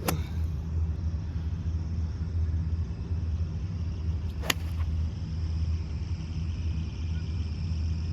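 Two sharp cracks of a golf club striking the ball, one at the start and one about four and a half seconds in, over a steady low rumble.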